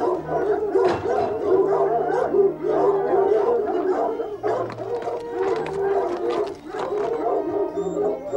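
A pack of foxhounds baying and howling together, many overlapping cries at once.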